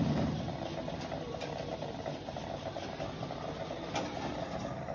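Marble-run gumball machine's mechanism running with a steady hum, with a few faint clicks about a second in and again near the end.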